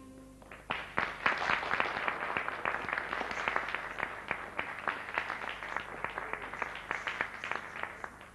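Audience applauding, a dense patter of many hands clapping that breaks out about a second in, just after the music stops, and slowly thins out.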